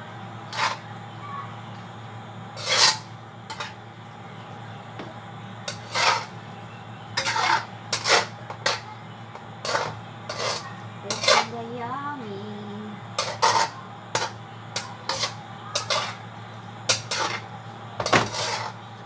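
Slotted metal spatula stirring pasta in a stainless steel pan, scraping and knocking against the metal in irregular clanks, roughly one or two a second.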